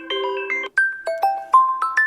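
Xiaomi Mi 10T ringtones: a melody of held chiming notes stops abruptly under a second in, and the next ringtone starts straight after with quick, bell-like mallet notes, about four a second.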